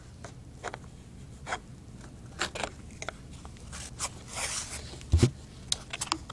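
Handling noises as a plastic fashion doll is steadied and propped up on a surface: scattered clicks, rustles and scrapes, with one heavier knock about five seconds in.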